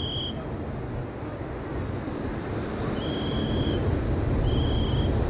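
Ocean surf breaking on a sandy beach: a steady rushing wash with a low rumble of wind on the microphone, growing louder near the end. Three short, steady high-pitched tones sound over it, one at the start and two near the end.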